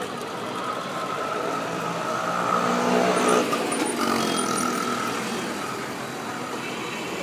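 Street traffic: a passing motor vehicle's engine, growing louder over the first three seconds or so and then fading away.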